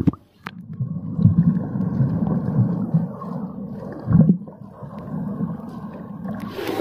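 Muffled underwater sound from a phone microphone held under the water: low bubbling and churning water with the high end cut off. There is a click about half a second in and a dull bump about four seconds in.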